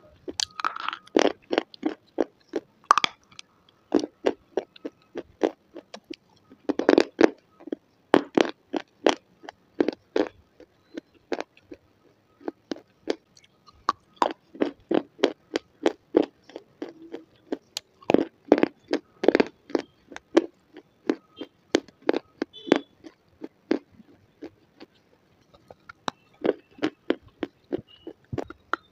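Close-miked crunching and chewing of brittle white slate pencil: sharp, crisp crunches several a second, coming in runs with short pauses between bites.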